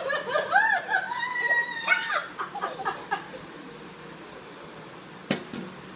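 Playful laughing and giggling voices for about the first two seconds, then a quiet room with a single sharp knock near the end.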